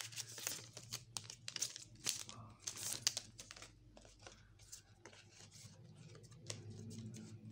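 Magic: The Gathering trading cards being flipped through and slid against one another by hand. A quick run of crisp paper rustles and snaps fills the first three seconds or so, then the handling goes sparser and softer.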